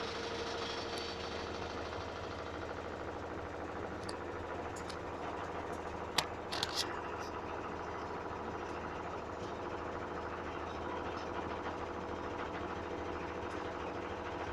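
Washing machine running with a steady hum, with a couple of short clicks a little past the middle.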